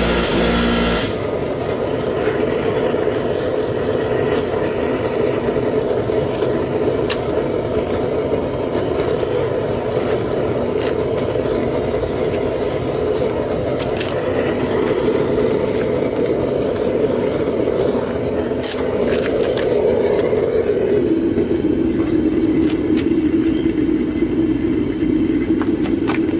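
Propane burner firing steadily into a homemade foundry furnace, a loud even rush. A short pitched hum cuts off about a second in, and about twenty seconds in the rush drops to a lower, steadier pitch.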